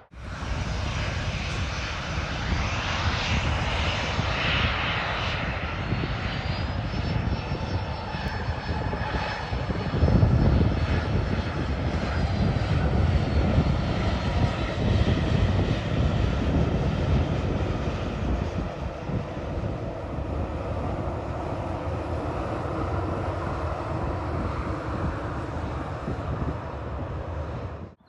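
Jet airliner passing close by the runway, its engine noise swelling to its loudest about ten seconds in, with a faint high whine through the middle.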